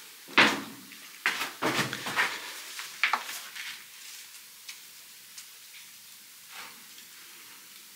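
A handful of short knocks and scuffs in the first three seconds, then a low steady quiet broken by a few faint clicks.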